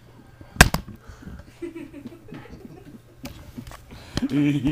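A single sharp knock about half a second in, handling noise as the camcorder is moved, then faint voices in the room, and a person's voice starting near the end.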